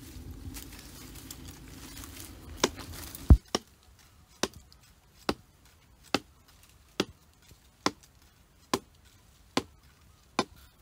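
Rustling in forest undergrowth, then a heavy thump about three seconds in. After it comes a steady series of about nine sharp chopping blows, a little more than one a second, from a hand-held stone swung overhead and brought down hard.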